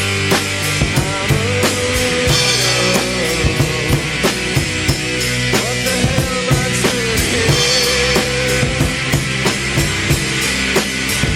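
Rock music with a steady drum-kit beat and a held melody line over it.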